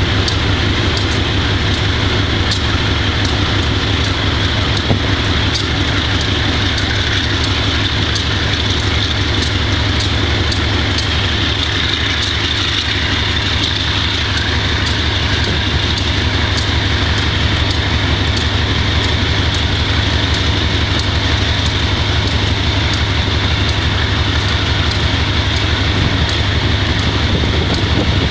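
GE B30-7 diesel-electric locomotive's V12 diesel engine running steadily, with a fast low pulse and faint ticking, on a unit with bad injectors.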